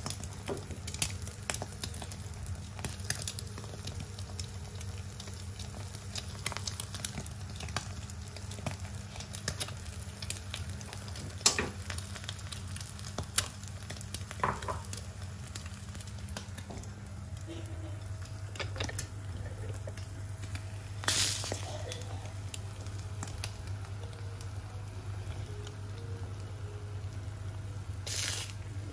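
Quail eggs frying in a small pan on a gas stove: a steady sizzle with scattered crackling pops. A few sharp knocks and clinks come through in the second half.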